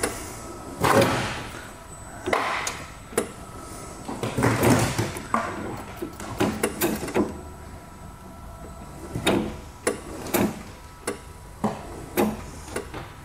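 Cut-out slab of concrete floor grinding and scraping against the edges of the saw cut as a forklift lifts it straight up, with irregular knocks and clunks.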